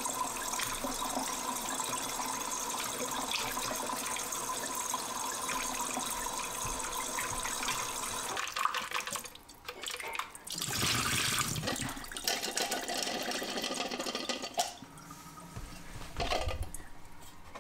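Tap water running into a plastic film developing tank and overflowing into the sink during the film wash. About eight seconds in the flow breaks up and comes back, then dies away about fifteen seconds in, followed by a couple of knocks as the tank and film reel are handled.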